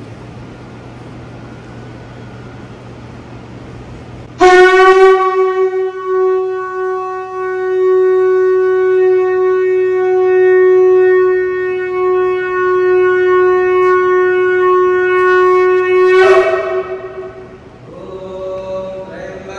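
A conch shell (shankha) blown in one long, steady note, sounded to open a Hindu prayer. The note starts sharply about four seconds in, is held for about twelve seconds, then breaks off.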